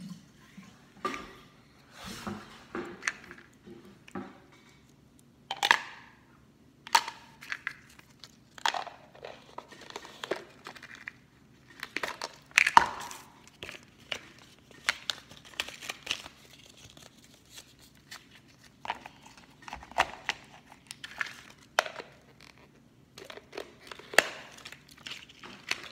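Plastic and foil toy packaging being crinkled and torn open by hand: irregular sharp crackles and rustles, with the loudest tears a little after 5 seconds and about 13 seconds in.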